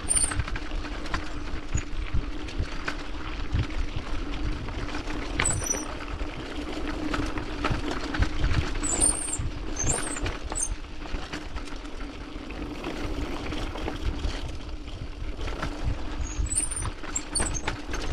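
Mountain bike rolling downhill over a loose gravel track: tyres crunching over stones and the bike rattling with constant small jolts, over a steady low hum.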